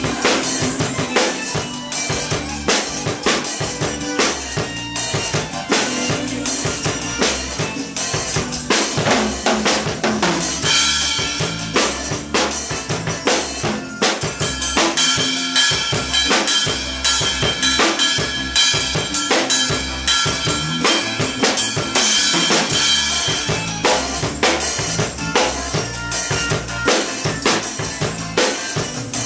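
Pearl drum kit played continuously, with bass drum and snare strikes running through a busy groove.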